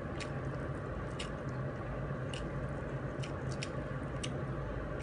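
A person eating chicken by hand: chewing, with short sharp clicking smacks about once a second, over a steady low hum.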